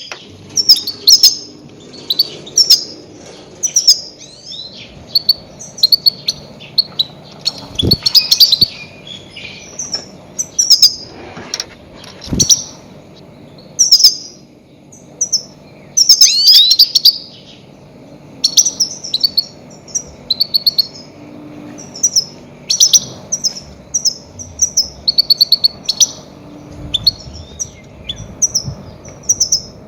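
Goldfinch calling in quick clusters of short, high chirps and twittering phrases with brief pauses between them, the kind of call recording used as a lure to trap goldfinches. A faint low hum runs underneath, and there are two brief low thuds in the first half.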